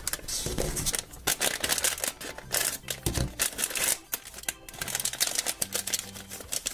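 A foil blind-bag packet being torn open and crinkled by hand, with irregular crackling and rustling throughout.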